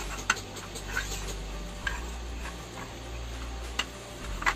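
Stacked plastic tiers of a swivel-open makeup organiser box clicking and knocking lightly as they are swung out one by one, about five separate clicks at uneven intervals.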